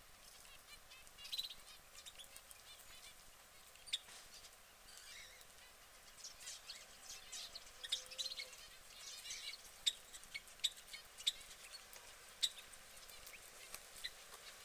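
Domestic canary giving scattered short, high chirps, with several sharp clicks in the second half.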